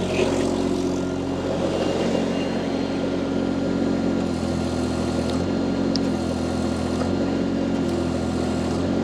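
Mini skid steer loader's diesel engine running steadily, with its auxiliary hydraulic flow turned down to drive the angle sweeper. The engine note shifts slightly a few times.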